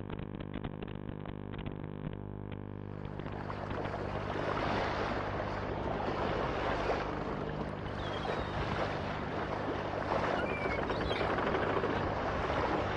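Radio-controlled boat's electric motor and propeller running with a steady hum, then a louder rushing noise from about three seconds in as it runs over the water.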